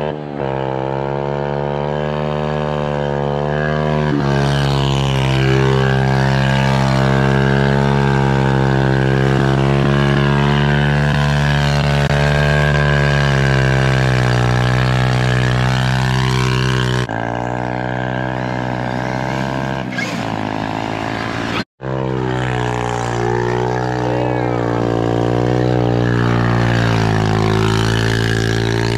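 Small single-cylinder four-stroke pit bike engine running hard at fairly steady revs while riding. The engine sound breaks off abruptly about two-thirds of the way through and then resumes.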